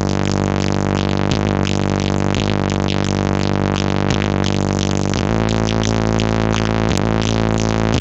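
Loud electronic dance music played through a giant truck-mounted stacked loudspeaker system (an Indonesian 'sound horeg'), with a deep bass held steadily throughout.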